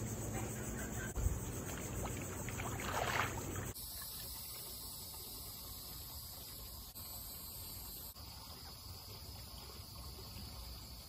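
Steady high buzz of insects outdoors. In the first few seconds a fuller noise of pool water is under it, with a brief swell of sloshing about three seconds in. That water noise drops out abruptly a little before four seconds in, leaving the insect buzz alone.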